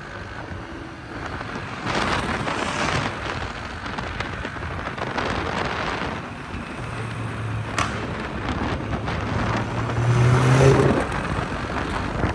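Road traffic noise with a car engine running; about seven seconds in a low engine note comes up and climbs in pitch as the car revs, loudest near the end.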